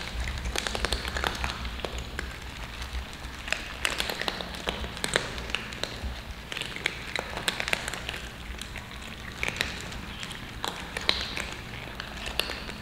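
Several cats crunching dry kibble from a metal tray: a dense, irregular patter of sharp crunches and clicks.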